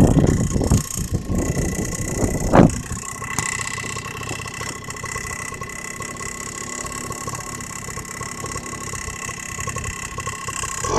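Stels Tactic 50 moped engine running with a knock that the owner takes for the piston striking the cylinder head. It is louder and rougher at first, with one sharp loud clack about two and a half seconds in, then settles into steady running.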